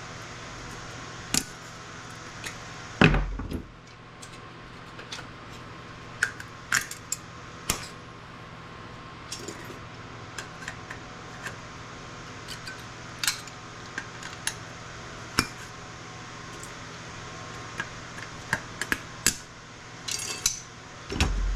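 Hand tools and metal parts clicking and clinking while components and steel pieces are pried off circuit boards, in scattered sharp knocks with the loudest about three seconds in, over a steady low hum.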